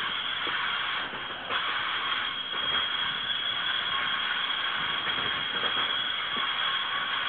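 Riding sound of the Nebraska Zephyr's stainless-steel passenger cars rounding a curve: a steady rattling rush of wheels on rail with scattered faint clicks, and a steady high squeal over it, typical of wheel flanges grinding on a curve.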